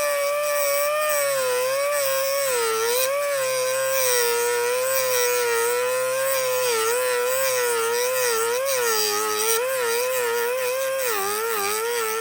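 Cutoff wheel tool whining as it grinds down the head of a stainless steel rivet, with a gritty hiss of metal on the wheel. Its pitch dips again and again as the wheel bites under pressure, and near the end it winds down sharply as it is switched off.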